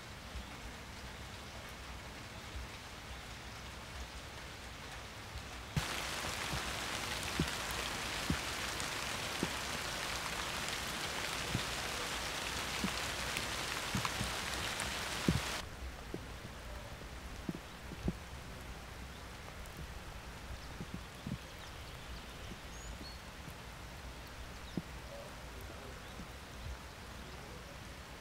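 Steady rain with scattered drops tapping close by. The rain hiss is louder for about ten seconds in the middle, starting and stopping abruptly.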